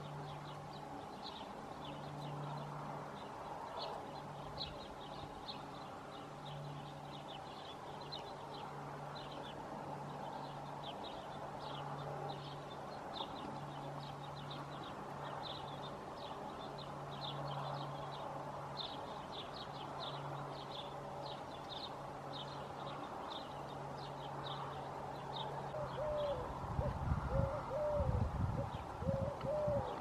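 Eurasian collared dove cooing, a low coo phrase repeated over and over with short pauses, while small birds chirp quickly and high in the background. In the last few seconds a low rumbling noise comes in and becomes the loudest sound.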